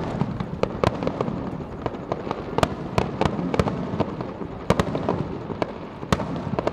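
Fireworks finale: a rapid, irregular barrage of sharp bangs and cracks from shells bursting overhead, over a continuous rumble of further explosions.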